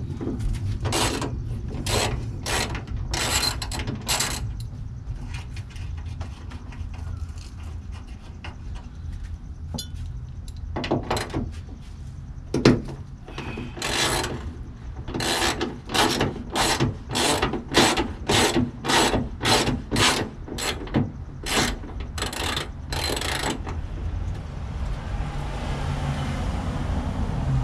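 Hand socket ratchet loosening a 12 mm hood-hinge bolt, its pawl clicking in runs: a cluster of clicks at the start, a pause, then a long even run at about two clicks a second that stops a few seconds before the end. The ratchet makes a lot of noise.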